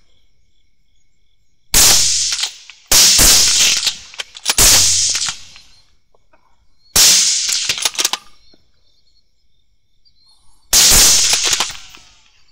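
Five rifle shots from a 6.5 Creedmoor bolt-action and a .223 gas-operated rifle, each a sharp crack with a short echoing tail. The first three come close together, then one more about two seconds later and the last near the end: follow-up shots at a running coyote.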